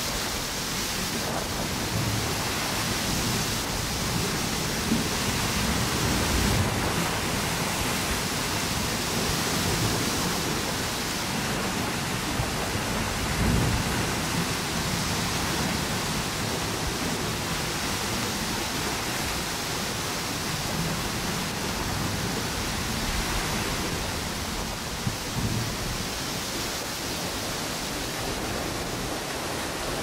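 Storm wind blowing across a tropical beach with ocean waves washing ashore and palm trees tossing: a steady rushing noise with brief low surges every few seconds.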